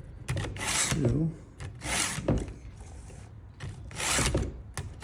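Stihl 2-in-1 file guide being pushed across a chainsaw chain's cutter tooth: three rasping file strokes, roughly one to two seconds apart, sharpening the chain.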